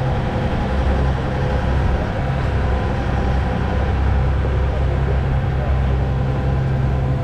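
A fishing charter boat's engine running steadily under way: a loud, even, low drone with a faint steady hum above it.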